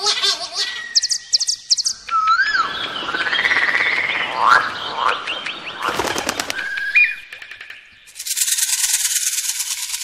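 Assorted bird calls: quick chirps, short whistled notes and sliding whistles. About eight seconds in, a rapid, high buzzing trill takes over.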